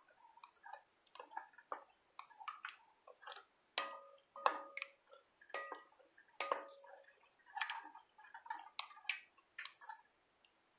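A wooden spoon stirring thickening chicken pot pie filling in an enamel pot. It makes irregular clicks, scrapes and wet sounds, with a few short ringing knocks against the pot side about midway.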